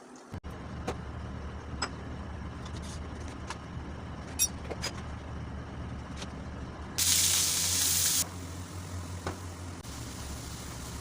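Kitchen cooking sounds: a steady low hum with scattered light clicks and knocks, and a loud hiss lasting about a second, starting about seven seconds in.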